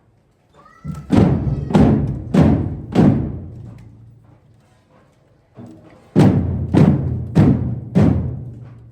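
Procession drums playing a slow, solemn funeral beat: four deep, ringing strikes just over half a second apart, a pause of about three seconds, then four more.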